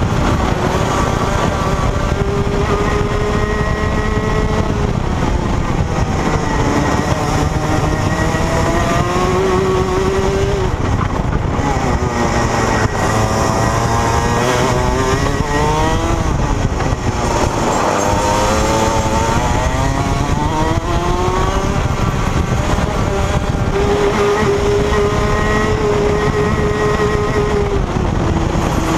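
Rotax Max 125cc two-stroke single-cylinder kart engine at racing speed, its pitch climbing under throttle and dropping off into the corners several times over, then held steady at high revs for a few seconds near the end before falling again.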